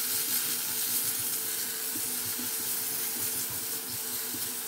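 Carrot pieces sizzling steadily in hot garlic oil in a stainless steel wok as they are stir-fried with a silicone spatula.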